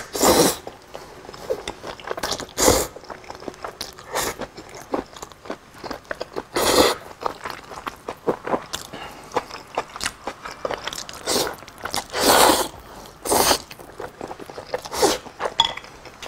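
A person eating seafood zhajiang noodles close to the microphone: several loud slurps with wet chewing and mouth noises between them.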